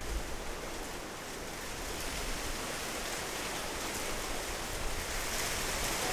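Heavy rain falling steadily, a dense even hiss that starts abruptly and grows a little brighter near the end.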